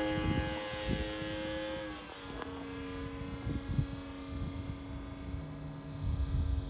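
Radio-controlled model airplane's motor and propeller droning in flight, a steady tone that drops in pitch and gets quieter about two seconds in as the plane passes and flies off.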